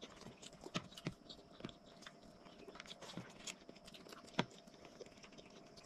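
Quiet chewing of rice with fried anchovy sambal, with small scattered clicks as the food is eaten by hand; one sharper click comes about four and a half seconds in.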